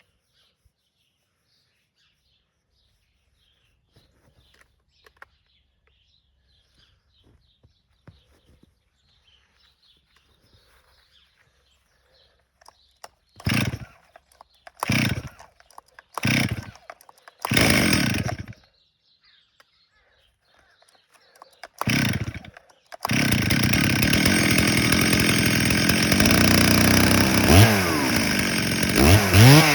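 Stihl 034 two-stroke chainsaw with a Meteor aftermarket cylinder, cold-started: after quiet handling, five short pulls of the starter cord, then it catches about 23 seconds in and runs on, its revs rising and falling several times near the end.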